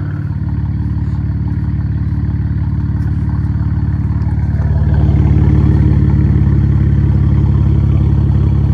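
BMW 335i's turbocharged inline-six idling steadily while warming up, its running getting a little louder about five seconds in.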